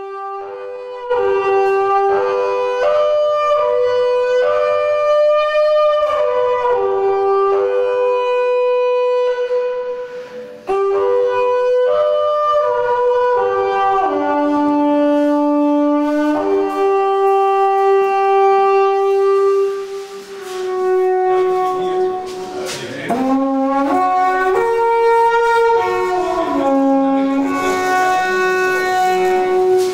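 Midwinter horn, a long curved wooden horn, blown in a slow tune of held notes that step up and down. It pauses briefly twice, and a few notes slide in pitch about two-thirds of the way through.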